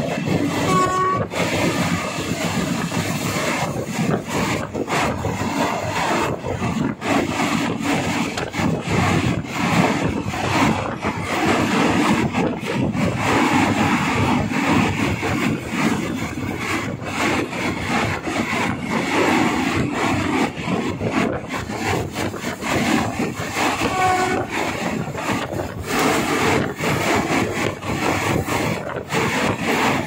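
Diesel-hauled passenger train 257 of the State Railway of Thailand running steadily on the Nam Tok line, its wheels clicking over rail joints in a continuous rumble and rattle. Short horn notes sound about a second in and again around 24 seconds.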